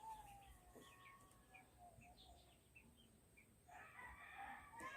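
Near silence, with faint distant bird calls: a run of short chirps, then what sounds like a rooster crowing near the end.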